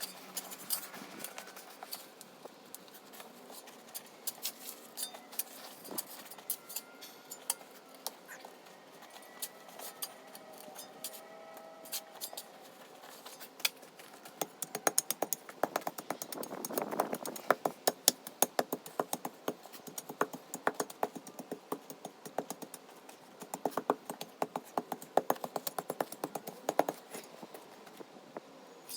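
Digging and handling crushed stone: many short clinks and scrapes of stones against each other and against a shovel, thickening in the second half.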